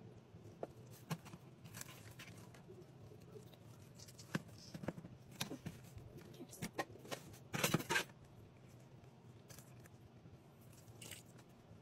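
Kitchen scissors snipping through a raw chicken, with scattered sharp clicks and tearing as the blades cut the meat and joints. A louder cluster of quick snips comes about eight seconds in.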